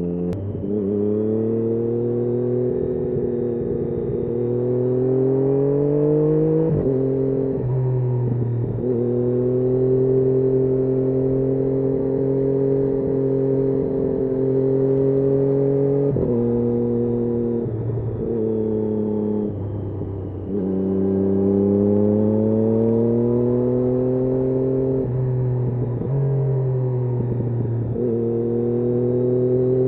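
Triumph Daytona 675's inline three-cylinder engine under way, its pitch climbing as the bike accelerates and breaking sharply at repeated gear changes, with a steadier stretch of cruising in the middle.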